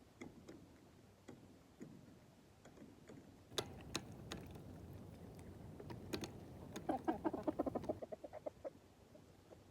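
Chickens pecking, with scattered sharp taps, and one hen giving a quick run of clucks about seven seconds in.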